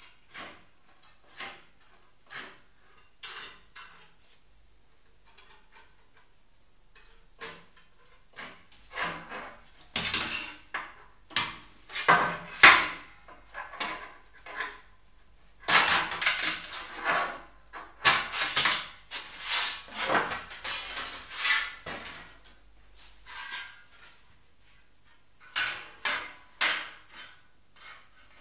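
Aviation snips cutting thin sheet steel, a crisp snip about once a second, followed by a long, louder stretch of sheet metal clattering and flexing against a steel workbench, with a few more metallic knocks near the end.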